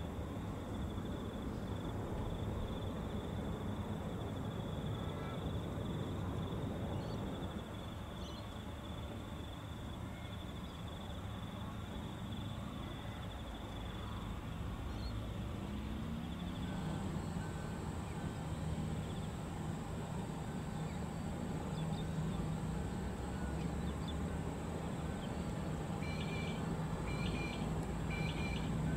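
Distant airliner engine noise: first a QantasLink Dash 8 Q400 turboprop's engines running after landing, a low rumble with a steady high whine. A little over halfway through the sound changes to a Boeing 717-200's Rolls-Royce BR715 jet engines on final approach, a steady low drone with a high whine, and a few bird chirps near the end.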